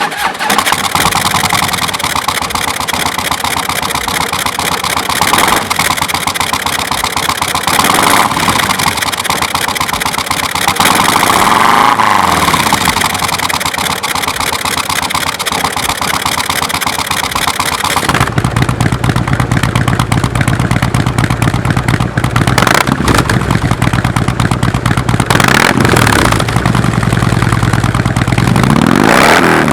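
Harley-Davidson touring motorcycle's V-twin engine running through KessTech ESM2 slip-on mufflers, revved up and back down several times. About two-thirds of the way through the sound changes abruptly to a deeper, heavier exhaust note, and the revving goes on.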